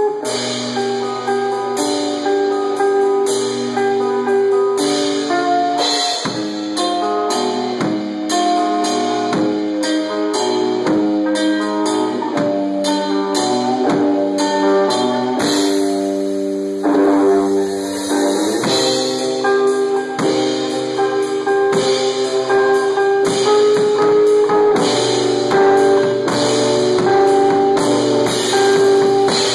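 Live rock band of electric guitar and drum kit playing loud, the guitar holding long pitched notes over steady drum hits and cymbals.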